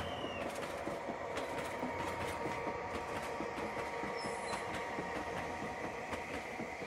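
00 gauge model Irish Rail A Class diesel locomotive hauling goods wagons past. It runs with a steady hum, and the wheels click irregularly over the rail joints.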